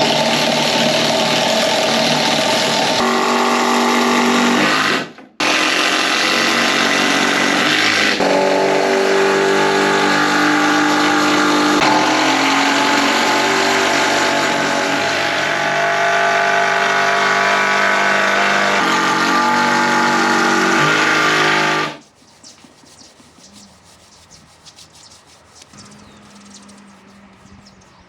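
Background music with sustained, changing chords, cutting out for a moment about five seconds in and stopping about 22 seconds in. After that, only faint ticks and knocks, with a faint low hum near the end.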